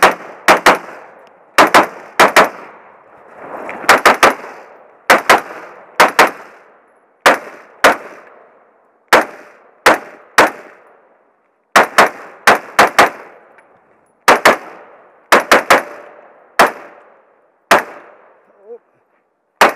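Semi-automatic carbine fired in a rapid string, mostly quick pairs and triples of sharp shots with short pauses between groups, each shot trailing off in a brief echo.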